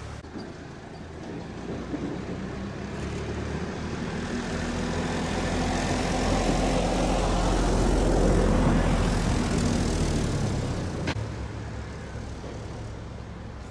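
Engine drone of something passing by, swelling over several seconds, loudest about eight seconds in, then fading away, with a single sharp click near the end.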